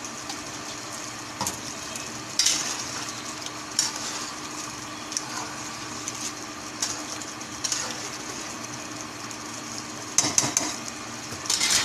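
A large spoon stirring a simmering chicken and potato korma in an aluminium pot, the gravy sizzling steadily under it. Several short scraping knocks of the spoon against the pot come through, the busiest near the end.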